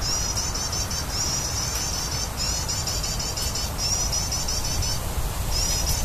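Rapid high-pitched chirping, repeated in runs of about a second with short breaks between, over a steady low rumble.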